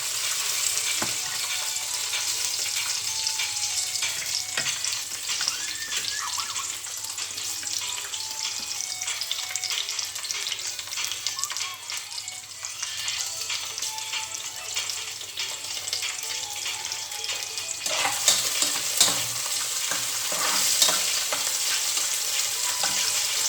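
Aromatics such as garlic, onion and ginger sizzling and crackling in hot cooking oil in a pan while being stirred. The sizzle grows louder about eighteen seconds in.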